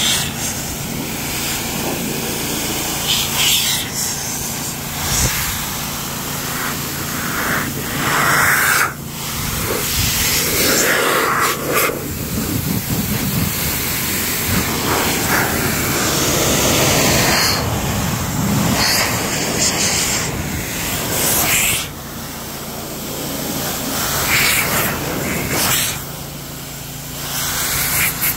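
Car dryer blower running, pushing air through a hose to blow water off car paint: a steady rush of air with a low motor hum, rising and falling in loudness as the nozzle moves over the panels.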